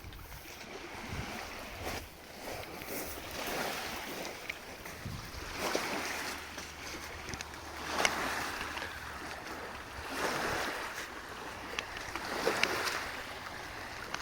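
Rustling handling noise that comes in swells every second or two, with a few sharp clicks, as a ratchet guy line is taken out and readied.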